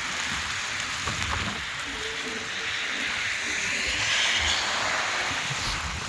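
Outdoor wind noise in a snowstorm: a steady rushing hiss that swells about four seconds in, with low irregular bumps of wind buffeting the microphone.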